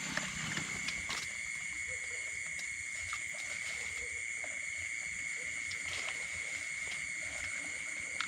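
Steady high-pitched trilling of night insects in a rice paddy, with a few faint clicks and small splashes as a hand gropes in shallow water.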